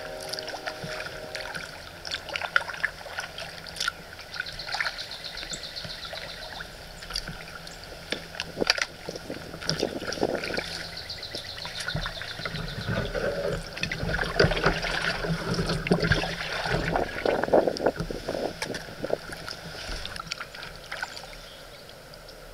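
Kayak paddle strokes: water splashing and dripping off the blades, with scattered light knocks and clicks, busiest in the middle stretch.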